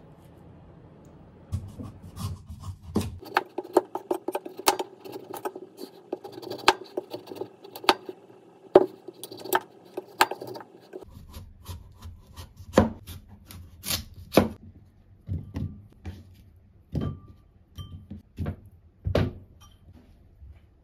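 A Global chef's knife cutting up a kabocha squash on a wooden cutting board: a run of sharp knocks as the blade goes through the hard squash and hits the board, closely spaced at first, then about one a second.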